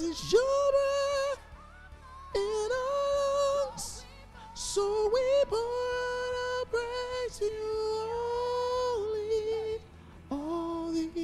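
Soprano voice singing the soprano part of a gospel worship song in long held notes, phrase by phrase with short pauses between. Near the end it drops to a lower held note.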